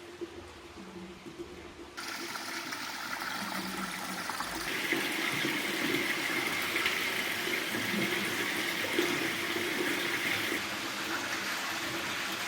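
Running water flowing and splashing into the basin of an old stone wash house, a steady rush that comes in suddenly about two seconds in.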